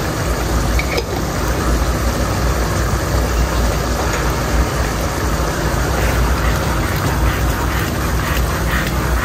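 Keema masala simmering in a pot on a gas stove over a steady low hum. From about six seconds in, a wooden spatula stirs and scrapes through the mince in quick strokes.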